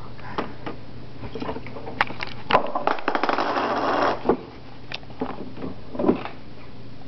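Scattered knocks and clicks of plastic toys being handled, with a dense rattle of pennies shaken inside a plastic water bottle for about a second and a half, starting about two and a half seconds in.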